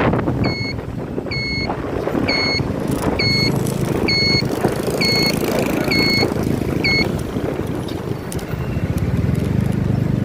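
A vehicle's reversing alarm beeps about once a second over engine and road noise. The beeps stop about seven seconds in.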